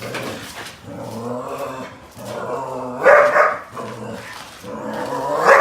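Rescue German Shepherd growling low in short stretches, then barking loudly twice, about three seconds in and near the end. It is reactive barking at another dog in sight.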